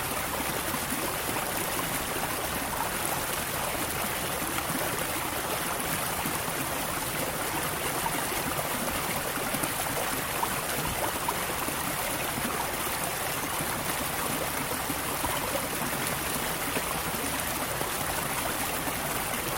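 Waterfall water pouring and splashing in a steady, even rush.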